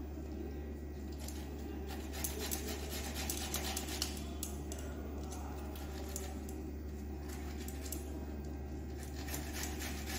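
Bottle gourd being grated on a stainless steel hand grater: rapid repeated rasping strokes that start about a second in and pause briefly twice, over a steady low hum.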